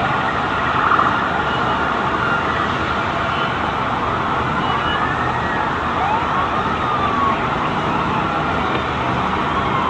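Several emergency-vehicle sirens wailing at once, their pitches rising and falling and overlapping, over steady street noise.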